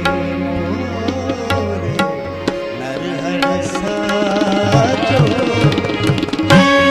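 Qawwali music with tabla drumming under melodic instruments; about six and a half seconds in, a loud held chord comes in.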